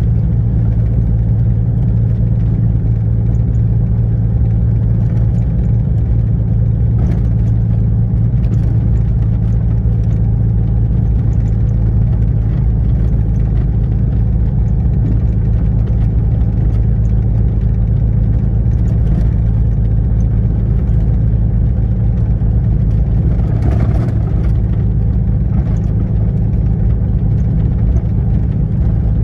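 The Cessna 402C's twin turbocharged six-cylinder piston engines run steadily while the plane taxis, heard from inside the cabin as a constant low drone with an even hum.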